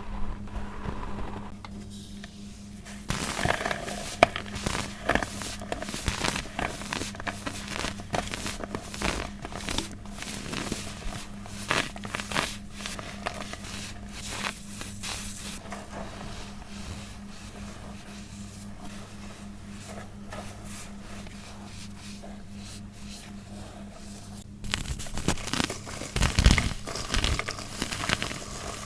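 Compacted baking soda being crushed and crumbled: dense crunching and crackling, quieter for a stretch in the middle and picking up again near the end.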